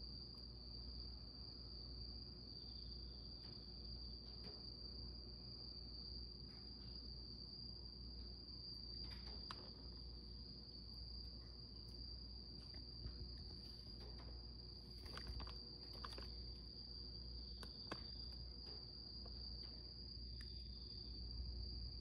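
Crickets chirring: a steady, unbroken high-pitched trill over a low hum, with a few faint clicks in the middle.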